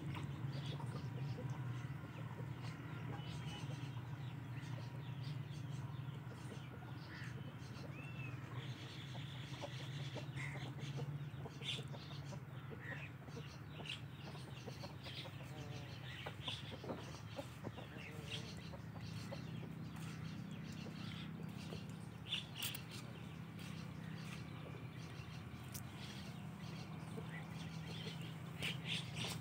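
Quiet outdoor yard ambience: a steady low hum with scattered short, high chirps and clicks.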